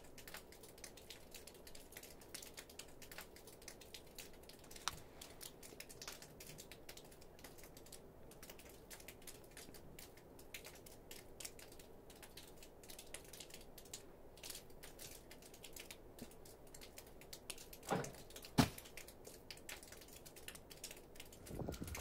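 Quiet ambience with faint, irregular small clicks and ticks throughout, and two louder knocks close together near the end.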